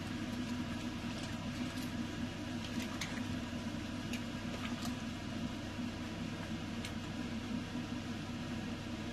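A steady mechanical hum with low droning tones, like a running kitchen appliance. A few faint ticks between about two and five seconds in are a steel ladle touching the pot as the soup is stirred.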